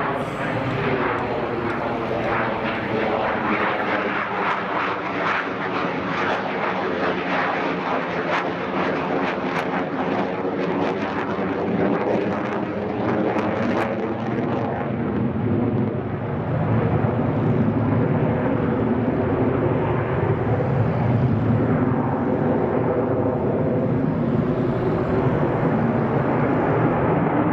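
JF-17 Thunder fighter's single Klimov RD-93 turbofan at high power as the jet manoeuvres overhead, a steady jet rush whose pitch sweeps up and down as the aircraft moves. It grows louder about halfway through.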